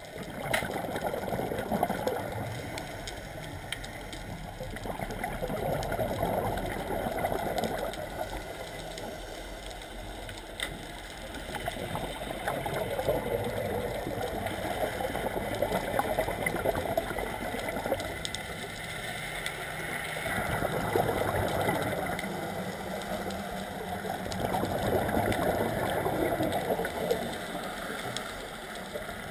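Scuba diver breathing through a regulator underwater: exhaled bubbles gurgle and rumble in swells every few seconds, with quieter stretches between breaths.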